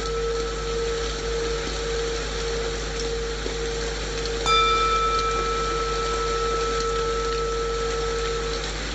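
Steady rain-like white noise with a low sustained hum tone beneath it; about halfway through a singing bowl is struck once and rings on, its bright overtones slowly fading.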